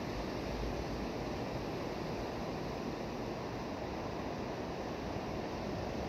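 Ocean surf breaking offshore and washing up over a shallow rocky shore: a steady, continuous rushing wash of waves.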